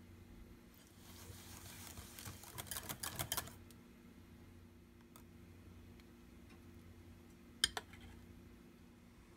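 Wire whisk beating cheesecake batter in a glass bowl: quick rattling strokes that build for about two seconds and then stop. Near the end a spoon clinks once on a bowl. A low steady hum runs underneath.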